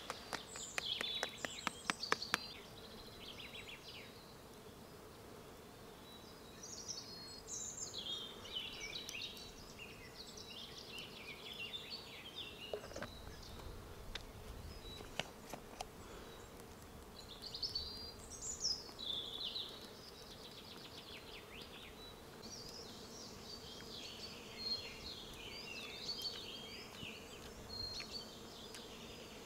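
Forest ambience: small birds chirping in scattered bursts of short notes over a faint steady insect buzz, with a quick run of light clicks in the first couple of seconds.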